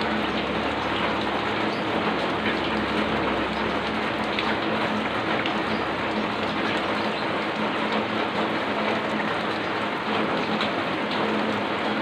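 Heavy rain falling steadily: a dense, even hiss with scattered individual drop ticks.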